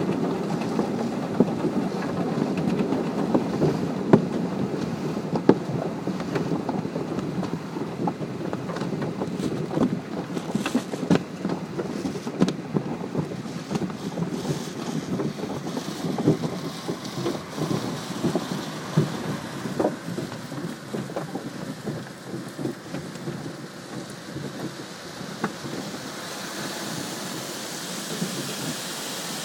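Automatic car wash heard from inside the car: the wash equipment scrubbing and drumming on the body, with many sharp slaps and knocks. About three-quarters of the way through this eases and a steady hiss of water spray on the windshield takes over.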